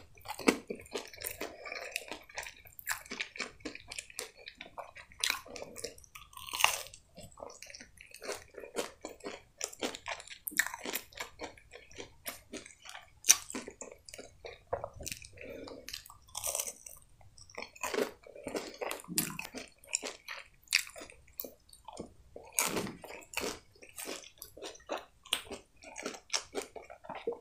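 Close-miked chewing and biting of breaded chicken nuggets, with many irregular crunches and crackles.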